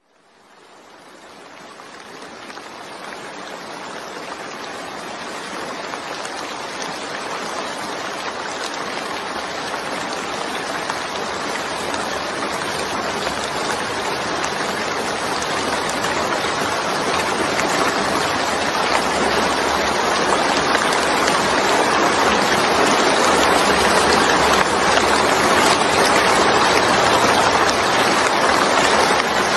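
Rain falling steadily onto a wet surface, a dense even hiss of drops, fading in from silence and growing louder over the first twenty seconds or so before levelling off.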